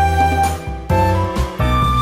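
Background music: a light instrumental tune with clear held melody notes over a steady bass line.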